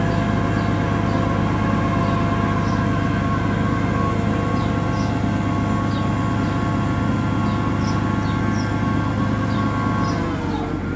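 Forklift hydraulics whining steadily under load as the Rightline RFG50D rotating clamp attachment turns, over a low hum, with faint light ticks. Near the end the whine drops in pitch as the rotation slows.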